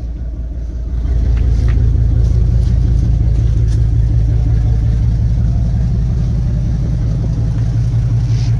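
Ford F-350's 6.8-litre Triton V10 running steadily, a deep even rumble that gets louder about a second in.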